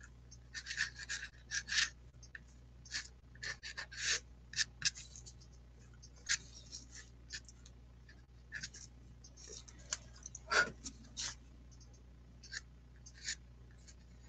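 Pastel strokes on paper: faint, irregular short scratches and rubs as the pastel is worked, with one louder scrape about ten seconds in.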